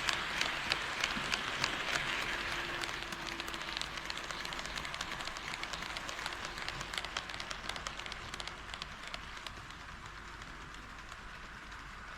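HO scale model train running along the track: a steady rolling whir of wheels and motor with rapid clicks of the wheels crossing rail joints, gradually fading.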